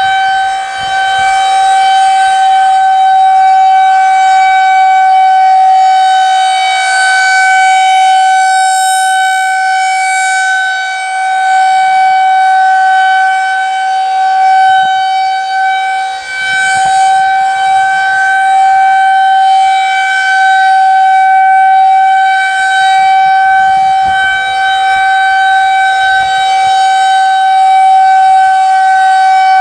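Federal Signal 2001-130 rotating electromechanical siren sounding a steady alert tone, one unchanging pitch with strong overtones. The loudness shifts slightly as the horn turns.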